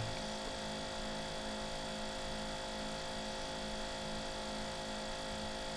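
A steady electrical hum made of several fixed tones, holding an even level throughout.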